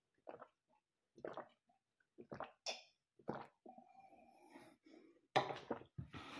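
A person gulping and swallowing water from a cup, faint, about one swallow a second. Louder rustling and knocks follow near the end.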